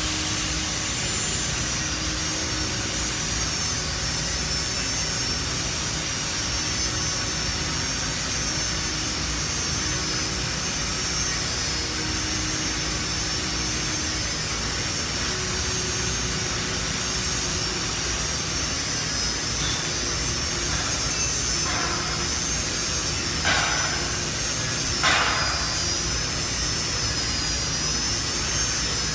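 Angle grinder grinding down welds on steel plate: a steady high whine over a rough grinding hiss, the whine's pitch wavering slightly. Two short sharp clanks sound late on.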